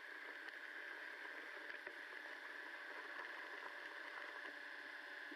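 Underwater ambience of a swimming pool picked up by a submerged camera: a faint steady hiss with a few scattered light clicks.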